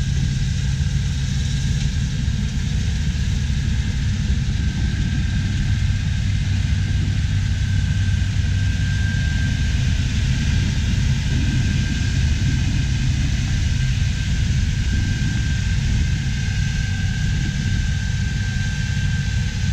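Combine harvester running steadily while cutting barley: a continuous low engine rumble with a faint steady high whine over it.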